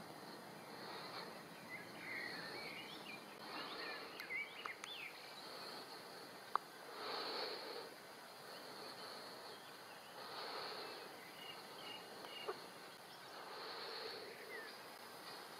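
Faint meadow ambience: insect song swelling in bursts about every three seconds, with a few short bird chirps in the first five seconds and two sharp clicks.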